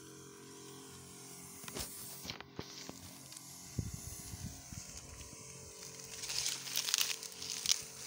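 Backpack sprayer misting herbicide: a steady hum with a hiss of spray, and a few knocks about two seconds in. Dry dead banana leaves rustle and crackle as he walks through them near the end.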